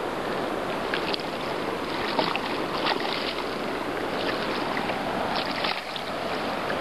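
River water running steadily, with several short splashes as a hooked fish thrashes at the surface.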